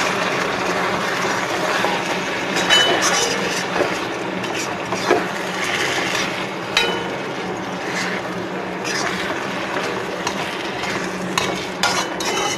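A metal spatula stirring and scraping chicken drumsticks in thick masala around a cast-iron kadai, with scattered clinks and scrapes against the pan over a steady hiss.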